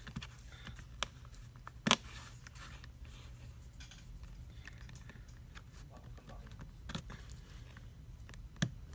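Plastic pry tool worked around the seam of an LG K10 smartphone, prising the screen assembly off its frame: scattered faint scraping and clicking of plastic, with a sharper click about two seconds in, over a low steady hum.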